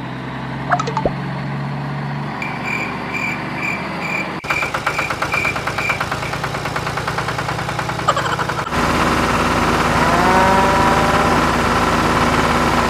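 Vehicle engine sound, most likely a dubbed tractor engine effect. A steady low hum is joined by a repeated high beeping and then a fast rattle. About two-thirds of the way in it switches abruptly to a louder, steady engine running.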